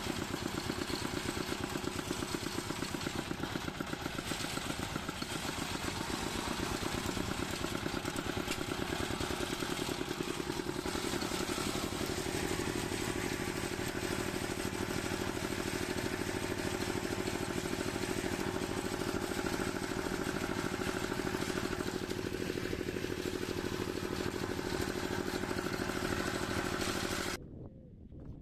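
Walk-behind tractor's single-cylinder engine running steadily under way, towing a trailer, with an even rapid pulse; the sound cuts off suddenly near the end.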